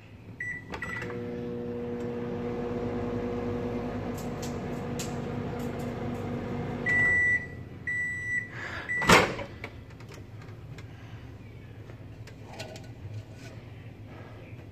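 LG over-the-range microwave oven: keypad beeps as it is set, then a steady hum for about six seconds while it runs. It ends with three beeps, the first one longer, followed by a loud clack.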